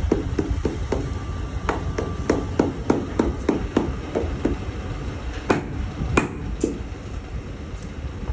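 Shoemaker's hammer tapping a glued leather sole onto a shoe, pressing it down to bond. Steady taps about three a second, then a few sharper, louder knocks just past the middle.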